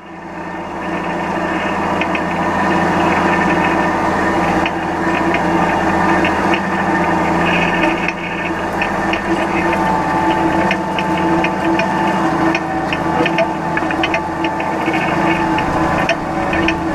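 John Deere 9500 combine running steadily, its engine hum overlaid with a constant patter of small rattling clicks.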